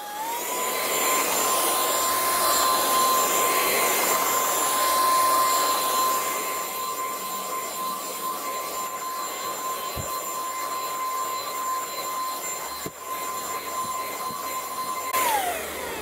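MOOSOO K17 cordless stick vacuum switched to its high setting: the motor's steady whine steps up in pitch at the start and holds over a rush of air as it is pushed over carpet. About fifteen seconds in it is switched off and the whine falls away as the motor spins down.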